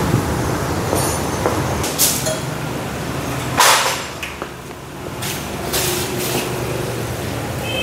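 Motorcycle workshop noise: a steady low engine hum with scattered knocks and clanks of tools, and one short loud burst of noise about three and a half seconds in.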